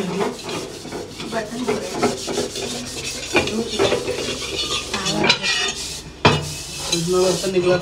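Steel dishes and utensils being scrubbed at a kitchen sink: rapid rubbing and scraping strokes with light clinks of metal, and one sharp clank about six seconds in.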